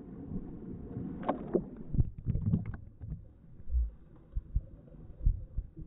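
German shepherd swimming in a pool, its paddling splashing and sloshing the water, with scattered low thumps.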